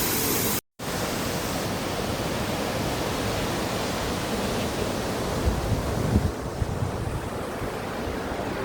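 Steady rushing of falling water from the Dynjandi waterfall cascades, with wind buffeting the microphone in a few low bumps around the middle. A brief cut to silence under a second in.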